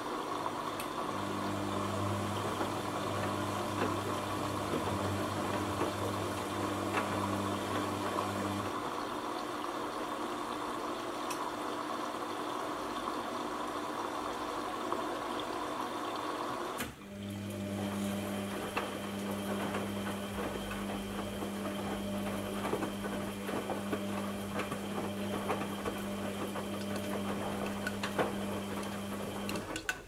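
Aldi front-load washing machine running its quick 15-minute wash cycle: a steady motor hum that stops for about eight seconds and then starts again, over a constant background noise with faint small clicks.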